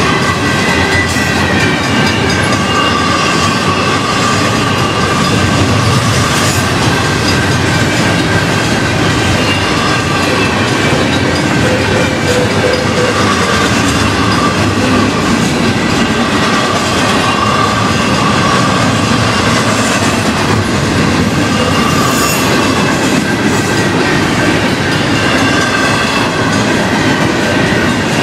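Union Pacific double-stack intermodal freight cars rolling steadily past, a continuous rumble of wheels on the rails, with the grade-crossing signal bells ringing over it.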